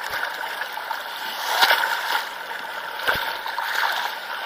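Sea water sloshing and splashing close to the microphone, swelling twice, with a few sharp knocks.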